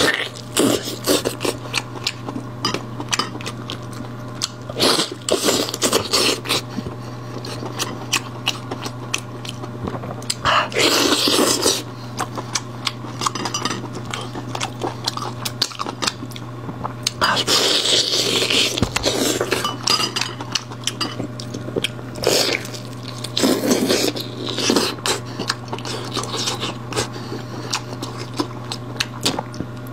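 Close-miked eating sounds: meat bitten off a bone slathered in spicy garlic sauce, with wet chewing and lip-smacking clicks throughout and a few louder slurps of a second or two, over a steady low hum.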